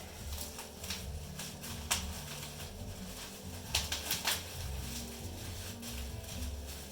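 Packaging being handled and unwrapped around a camera body: scattered rustles and sharp clicks, the loudest about two seconds in and a cluster of them around four seconds in.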